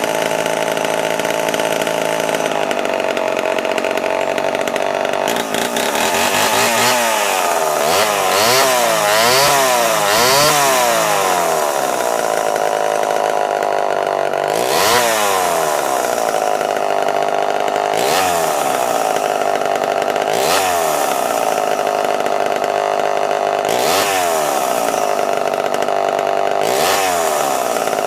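1974 Homelite XL-12 two-stroke chainsaw engine running steadily. It is revved several times in quick succession about a quarter of the way in, then blipped up and back down about every three seconds. The old saw, bought not running, now runs, though it is still due a tune-up.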